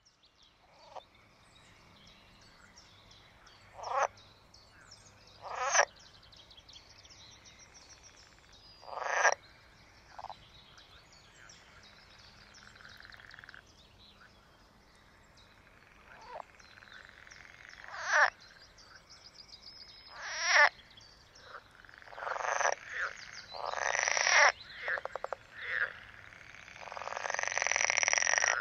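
Green frogs (water frogs) calling: scattered single croaks and short rattling calls, building near the end into a denser chorus of longer, buzzing calls.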